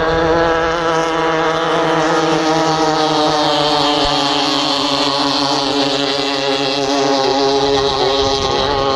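Two racing long-tail boats running flat out side by side. Their engines give a loud, steady high-revving note that holds its pitch with a slight warble.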